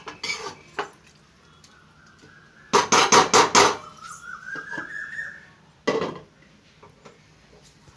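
Lid and cooking pan clinking as the lid is handled: a few light clicks, then a quick cluster of about five clattering knocks about three seconds in and one more knock near six seconds. A faint thin tone slowly rises in pitch between them.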